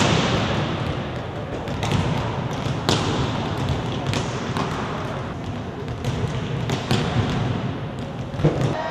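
Volleyballs bouncing on a sports-hall court and being hit. Scattered sharp slaps and thuds, loudest at the start and again near the end, over a steady background noise in a large hall.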